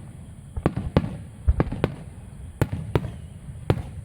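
Aerial firework shells bursting in a rapid barrage: about seven sharp booms in four seconds, some in close pairs, each followed by a low rumbling tail.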